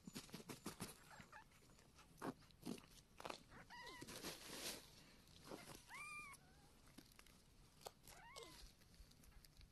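A newborn kitten's faint mews: three short high cries that rise and fall in pitch, about four, six and eight seconds in. Between them come crinkling and rustling of the pad and the wet sounds of the mother cat licking.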